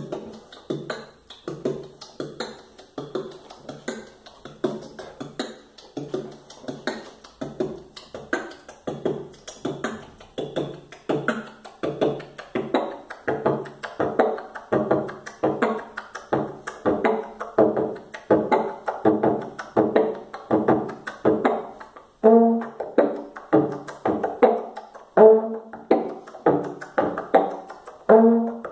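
Vocal beatboxing imitating a trombone: a rhythmic run of short, buzzy brass-like notes over percussive mouth beats. There is a brief pause about 22 seconds in, after which the notes come louder and faster.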